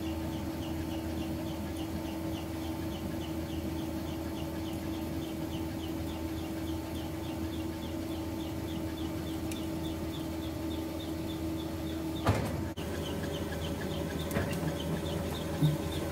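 Steady mechanical drone of workshop equipment, with a fast, regular high chirping over it and a single knock about twelve seconds in.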